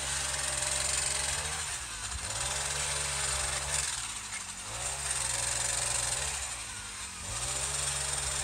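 Small four-stroke Troy-Bilt string-trimmer engine driving a pole saw attachment, revved up and eased back four times, about every two seconds.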